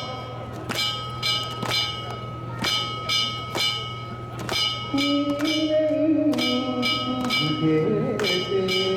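Danjiri festival hand gongs (kane) struck in short runs of three or four quick ringing strikes. From about halfway through, people's voices join in.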